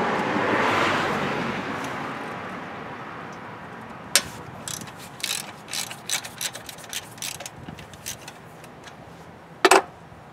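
Ratchet wrench clicking in short, irregular runs as a bolt is worked loose, then a single loud metallic clink near the end. A rushing background noise fades away over the first few seconds.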